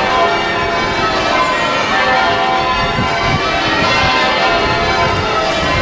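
A ring of church bells being rung full-circle in English change-ringing style, strikes following one another so that their tones overlap into a continuous peal.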